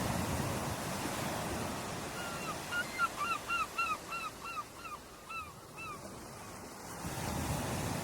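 Ocean surf washing onto a shore, one wave surging at the start and another swelling near the end. In between, a seagull calls a quick series of about a dozen short notes.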